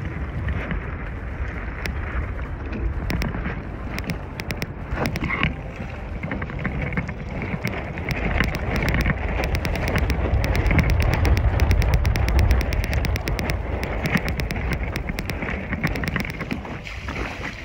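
Wind buffeting the microphone in a heavy low rumble that swells past the middle, over water sloshing and slapping against a small sailboat's hull, with many sharp clicks and taps scattered throughout.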